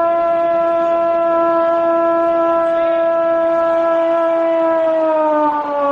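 Football radio commentator's long drawn-out goal cry, a single "gooool" held loudly on one steady pitch for about six seconds, sagging slightly in pitch near the end.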